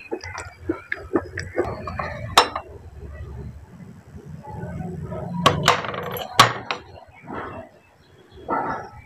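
Dry baked-clay discs clicking and clinking against a steel plate. About halfway through, one is slid and lifted off the plate with a scrape and two sharp clinks; before that comes a run of small crisp clicks.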